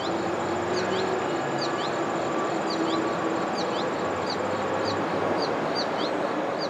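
Insects calling: a steady high trill with a short high chirp repeating every half second or so, over a steady low background rumble.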